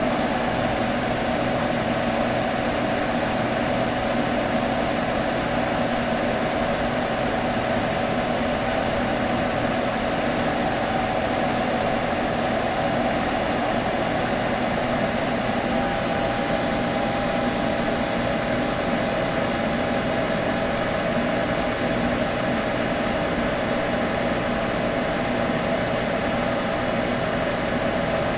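Computer running with a steady hum: fan whoosh with a few constant tones, unchanging throughout.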